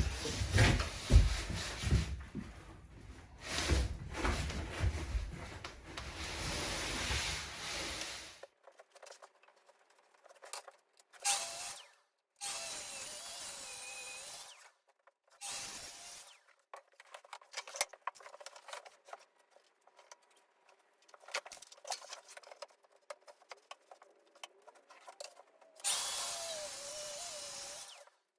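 Power-tool work on plywood: a drill runs in several separate bursts of one to two seconds, with quiet gaps between them. This follows several seconds of heavier, denser workshop noise at the start.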